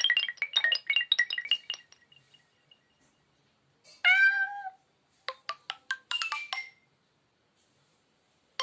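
Nokia Lumia 520 preloaded alert tones playing in turn: a fast run of bright chime notes that fades out, then a short tone with bending pitch about four seconds in, then a brief run of plucked notes.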